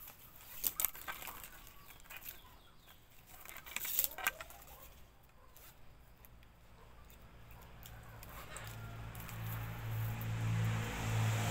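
Scattered clicks and rustles from hands binding a small grass broom with plastic strip, the sharpest about a second in and again about four seconds in. From about eight seconds in, a low engine hum grows steadily louder.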